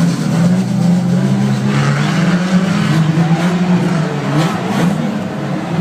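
Banger-racing cars' engines running and revving on the track, steady low engine note wavering in pitch, with a short rev rising about four and a half seconds in.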